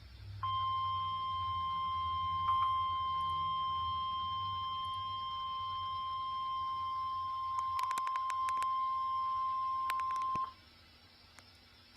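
NOAA Weather Radio 1050 Hz warning alarm tone: one steady high beep held for about ten seconds, then cutting off abruptly. It signals that a warning broadcast follows. A few clicks of static come in near the end of the tone.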